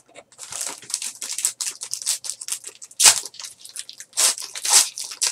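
Trading-card packaging being handled and opened by hand: quick rustling, scraping and crinkling of cardboard and plastic, with louder strokes about three seconds in and twice more near the end.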